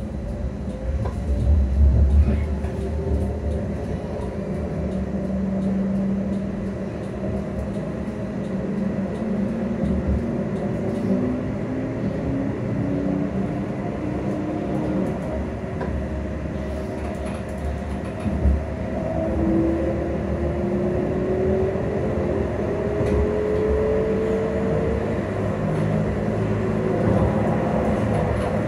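Inside a CAF Urbos 3 Edinburgh tram on the move: steady running rumble of the wheels on the rails, with the traction motors' whine rising in pitch through the middle stretch as the tram gathers speed. One brief knock a little past halfway.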